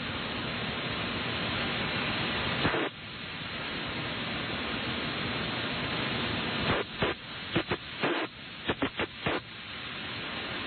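Radio static: a steady hiss from a weak or lost signal. It drops out briefly about three seconds in, and in the second half comes a quick run of crackles and short gaps.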